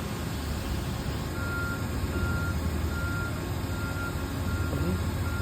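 Repeated short electronic beeps, one a little under every second, starting about a second in, over a steady low rumble.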